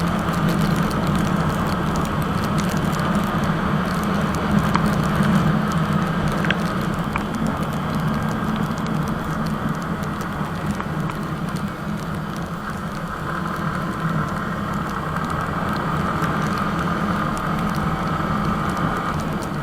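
Yamaha R15 V3 motorcycle running at a steady speed on the road: a steady low engine drone under wind rush and crackle on the microphone.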